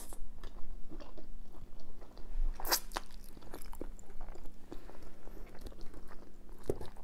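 Close-up chewing and mouth sounds of someone eating chilli cheese fries, with many small irregular clicks and one sharp click nearly three seconds in.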